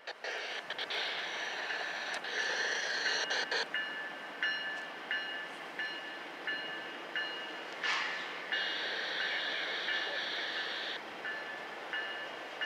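An approaching Norfolk Southern freight train, with a bell ringing steadily, about one and a half strikes a second.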